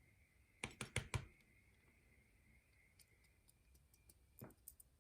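Small clicks and taps from a pin-tumbler lock and tools being handled while the lock is taken apart: a quick run of four sharp clicks about a second in, then scattered light ticks and one more click near the end.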